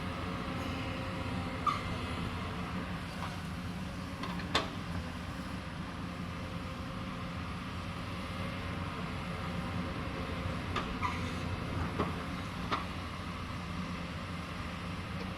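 Hydraulic excavator's diesel engine running steadily, with a few sharp knocks over it, the loudest about four and a half seconds in.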